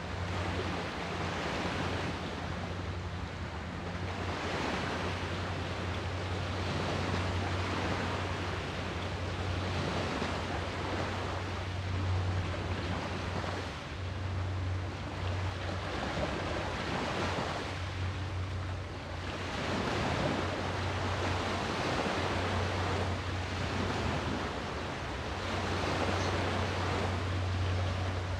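Sea waves washing in and surging every few seconds, with a steady low hum underneath.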